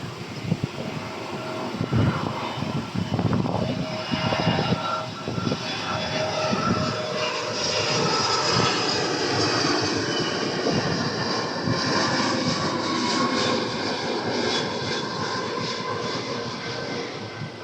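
Jet airliner's engines passing close by: a steady rushing roar with several high whining tones, growing louder to a peak about halfway through and easing off near the end.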